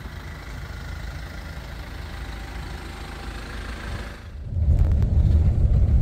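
Kia Carnival minivan's engine running, a steady low sound heard from outside the car. About four seconds in it gives way to a much louder, steady low rumble of a car driving on cobblestone paving, heard from inside the cabin.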